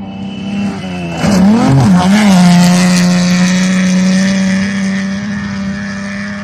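Rally car racing past on a gravel stage. Its engine gets loud about a second in, the revs dip and pick up twice as it goes by, then it holds a steady high note as it speeds away and fades.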